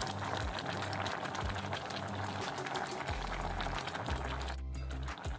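Broth of grilled fish and moringa pods boiling in an open stainless pot, a steady bubbling crackle, with low music underneath.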